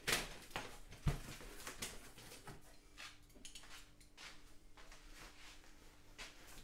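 A large cardboard box being handled and its top flaps opened: two sharper knocks about a second apart near the start, then scattered light rustles and scrapes of cardboard.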